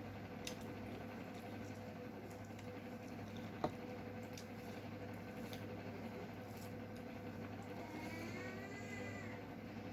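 Faint wet squishing and small clicks of curry and rice being eaten by hand, over a steady low hum, with one sharp click a few seconds in. Near the end a brief high-pitched voice rises and falls in the background.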